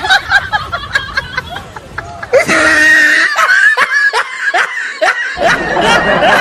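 People laughing loudly in repeated bursts of quick 'ha-ha' pulses, with one longer held laugh partway through.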